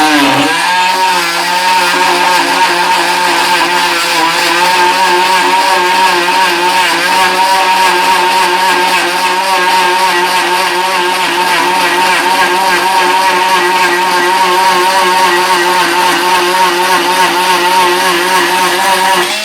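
Milwaukee M12 (C12 MT) 12-volt cordless oscillating multi-tool running continuously as its blade cuts along a line. It is a steady buzzing whine whose pitch sags briefly at the start as the blade loads, then holds with a slight waver through the cut.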